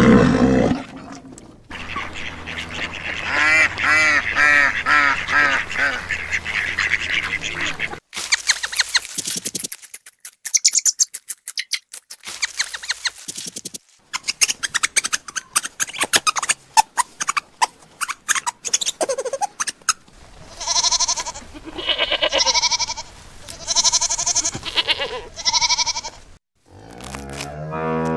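A string of different animal calls, one after another: wavering calls, then rapid clicking, then four or five loud calls about a second and a half apart, and a cow beginning to moo near the end.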